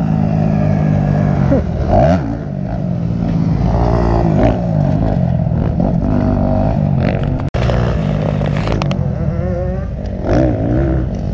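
Motocross dirt bike engines on a track, revving up and down repeatedly, with more than one bike audible at times; the sound cuts out for an instant partway through.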